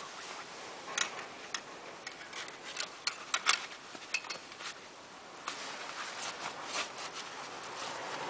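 Scattered light clicks and cloth rubbing from an engine-oil dipstick being wiped in a towel and handled among the hoses beside a tractor engine. The clicks come in an irregular cluster early on and again after the middle.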